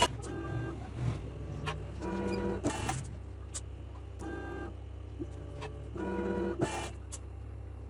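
A mini injection molding machine cycling: a motor whines in short runs every couple of seconds as the mold clamp moves, with a few sharp clicks and brief hissing bursts over a steady low hum.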